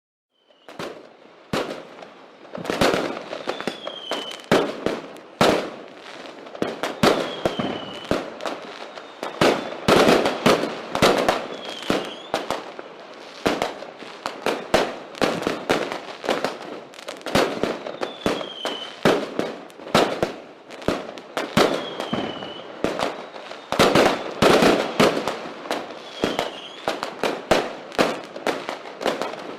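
Fireworks going off in a continuous, irregular volley of sharp bangs and crackling, several bangs a second at the busiest points. A short falling whistle recurs every few seconds.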